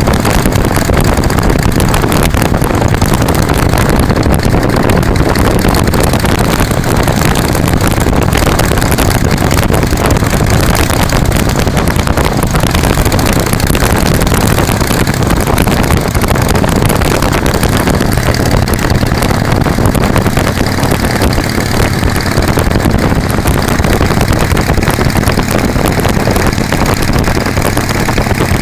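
2005 Harley-Davidson Softail Standard's V-twin running steadily at cruising speed, heard from a vehicle pacing alongside, mixed with heavy wind and road noise.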